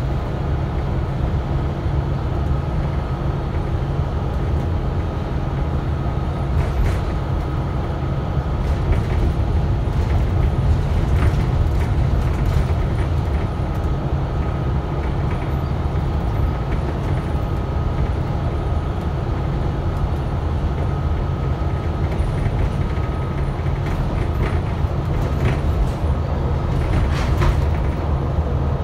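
Volvo B9TL double-decker bus driving along, heard from inside the passenger cabin: a steady low engine and road rumble with a thin high whine over it and occasional light rattles from the bodywork.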